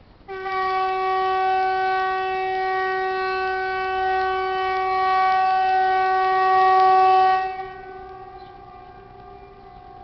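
A loud, steady horn-like tone on one held note, the strange sound from the sky, starting abruptly and holding for about seven seconds, then dropping sharply and carrying on much fainter at the same pitch.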